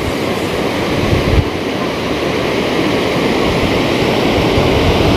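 Water pouring over a low river weir: a loud, steady rush of falling water, with a brief gust of wind hitting the microphone about a second and a half in.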